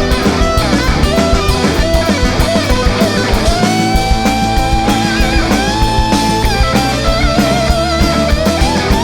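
Rock band playing live in an instrumental passage: a lead electric guitar holds long, bending notes with vibrato over bass and a steady drum beat.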